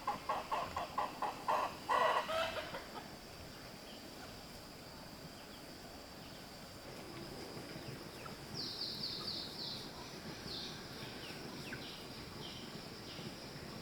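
A chicken clucking in a quick, even run of about five clucks a second that ends in a louder squawk about two seconds in. A steady high insect drone sounds underneath, and short chirps come in from about halfway through.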